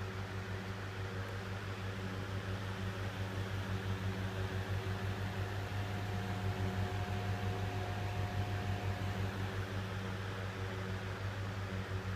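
Seibu Denko (Toshiba) IF-254TU pressure ventilation fan, made in 1997, running steadily and quietly: an even low motor hum under a steady rush of air.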